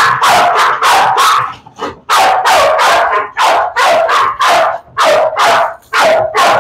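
A pit bull barking in a rapid, unbroken string of short, loud barks, about three a second, with one brief pause a little under two seconds in. This is excited barking from a dog being made to wait for the bite toy.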